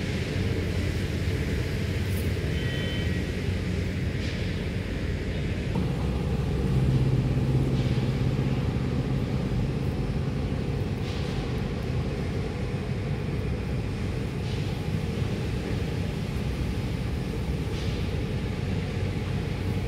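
A steady low engine rumble, like a motor vehicle running, its pitch shifting slightly about six seconds in. A few faint short high chirps come every few seconds.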